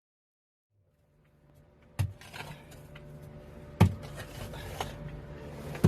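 A steady low mechanical hum with sharp knocks about every two seconds, as of tools striking during clean-up work. Silent for the first second, then the hum fades in.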